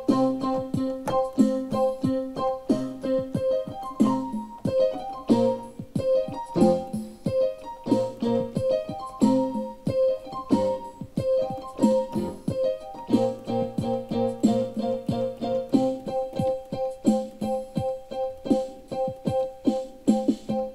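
Digital keyboard played alone in an instrumental passage, with no voice: one high note repeated in a quick steady pulse over lower chords that change about once a second.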